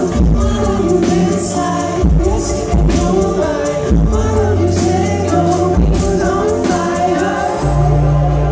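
Live indie rock band playing through a PA: electric guitar and heavy bass under a male lead vocal, with a long held bass note near the end.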